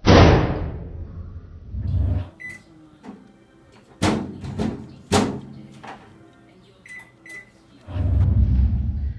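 Microwave oven beeping in short high tones, among loud bangs and thuds: a sudden loud bang at the start, two sharp knocks about four and five seconds in, and heavy low rumbling thumps near the end.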